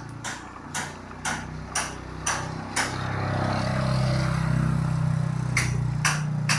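A motorcycle engine passes close by, loudest from about three to five seconds in. Under it a sharp click repeats about twice a second, in time with pedalling, as the bicycle climbs a steep lane.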